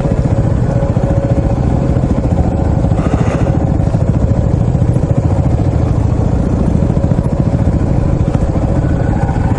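Single-cylinder off-road motorcycle engine running steadily, with a rapid even firing pulse.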